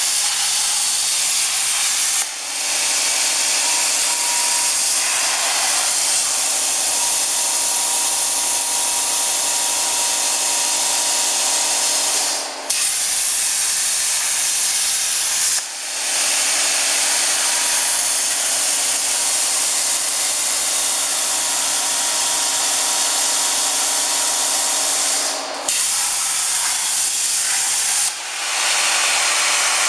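Oxy-fuel cutting torch on a CNC cutting machine, a loud steady hiss of the gas jet while cutting, broken by a few brief drops.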